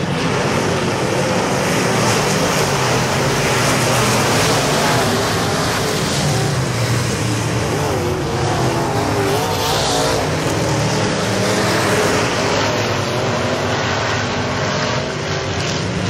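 A pack of IMCA Modified dirt-track race cars racing, their V8 engines blending into one loud, continuous drone whose pitch wavers up and down as the cars lift and accelerate.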